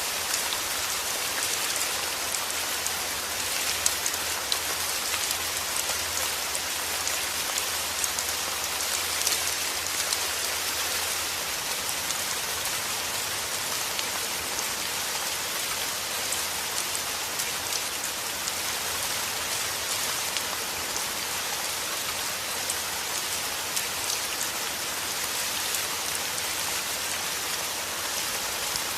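Heavy rain falling steadily: a dense, even hiss of drops with scattered sharper drop ticks.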